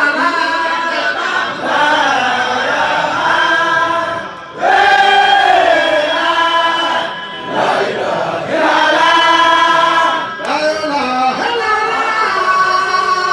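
Baye Fall zikr: male voices chanting a dhikr together in long, drawn-out melodic phrases that glide in pitch, with brief pauses between phrases.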